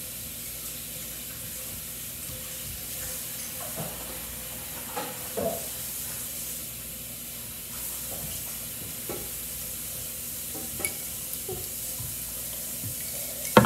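Steady background hiss with a faint low hum, and a few soft knocks and clinks scattered through.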